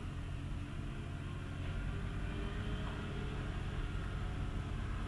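Steady low rumble with a faint hiss: continuous background machine noise, with no distinct handling sounds standing out.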